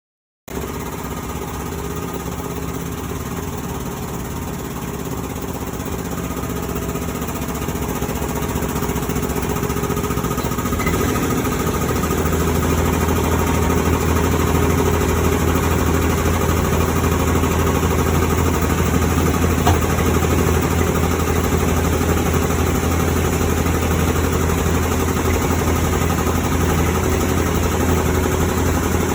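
A heavy engine running steadily, growing louder over the first ten seconds or so, then holding with a deep hum.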